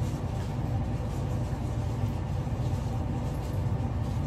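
Steady low hum of a running motor or fan, with a few faint light ticks over it.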